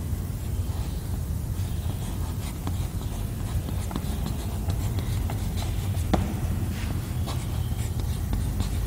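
Chalk scratching and tapping on a chalkboard as a figure and a word are drawn: scattered light strokes, one sharper tap about six seconds in, over a steady low hum.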